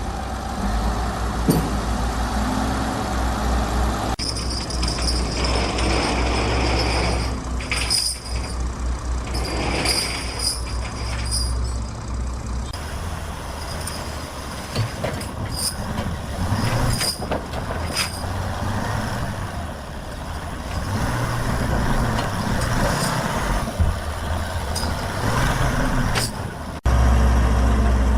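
Heavy sawmill machinery running, with a steady low engine hum, bursts of hiss and scattered knocks, cut together from several shots.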